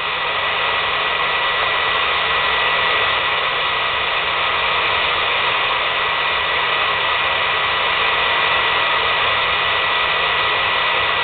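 Hair dryer running steadily, blowing air through a metal tube extension into a wood stove's firebox: an even rushing whir with a thin steady high whine.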